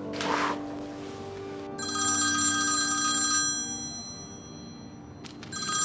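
A short puff of breath blowing out candles at the start. Then a telephone rings: a bright electronic ring lasting about a second and a half, starting again near the end, over soft music that fades out.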